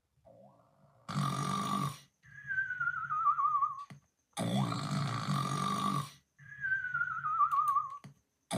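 Snoring in a steady cycle: a harsh rasping snore about a second long, then a whistle that slides down in pitch with a wobble. The pair repeats about every three and a half seconds.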